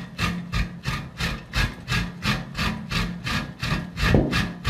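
Fresh coconut meat grated by hand on a stainless-steel box grater standing in a metal bowl: even rasping strokes, about three a second.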